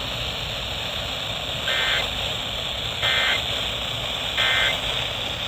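Three short bursts of NOAA Weather Radio SAME end-of-message data, screechy warbling two-tone digital chirps about 1.4 seconds apart, over steady radio static hiss. They mark the end of the severe thunderstorm warning broadcast.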